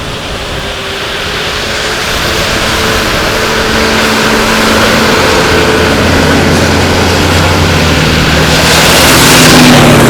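A motor vehicle's engine hum growing steadily louder as it approaches, with a rushing hiss at its loudest about nine seconds in.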